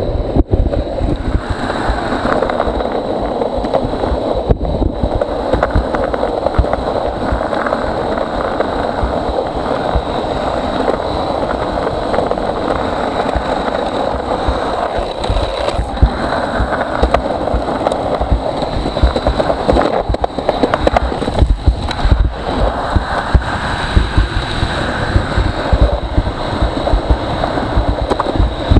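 Longboard urethane wheels rolling over rough asphalt: a steady gritty rumble with wind buffeting the microphone.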